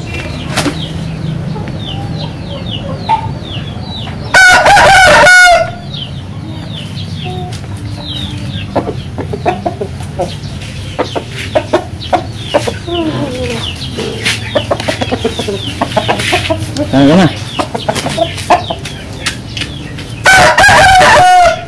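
Caged gamecock roosters crowing very loudly twice, about four seconds in and again near the end, each crow about a second long and dropping in pitch at its end. In between, chickens keep clucking amid many short high chirps.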